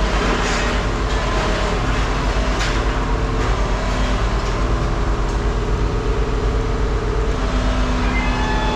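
Freight train cars rolling on the rails: a steady loud rumble with long, held squealing tones from steel wheels on the track.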